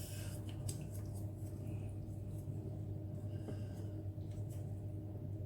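Quiet chewing of spicy instant noodles, with a couple of faint clicks, over a steady low hum.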